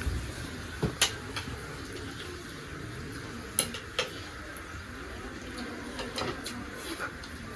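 Cutlery clinking against bowls and plates during a meal, with a few sharp clinks, the loudest about one second in and two more around three and a half to four seconds in.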